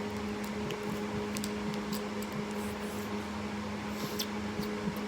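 A steady, even hum with a few faint clicks.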